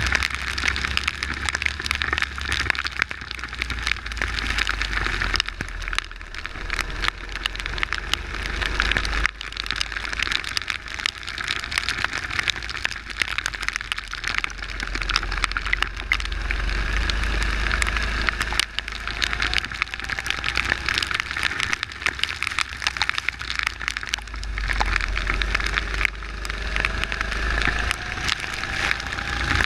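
Onboard sound of a kart engine running on a wet track, its pitch rising faintly several times as it accelerates, under a dense steady crackle of rain and wind hitting the camera.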